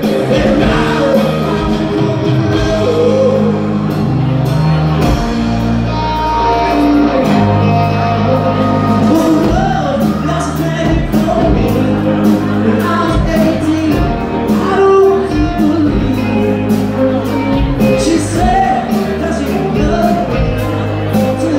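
Live rock band playing with lead and backing vocals: electric guitars, keyboard and drums under a singer, loud and unbroken.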